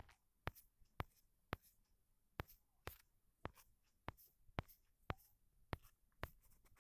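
Faint, sharp clicks or taps, irregular at about two a second, with a short scratchy stroke now and then.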